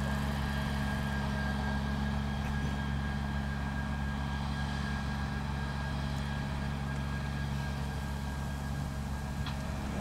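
Grimme Tectron self-propelled potato harvester lifting potatoes, with a tractor running alongside: a steady low engine drone with a thin, steady high whine from the machinery.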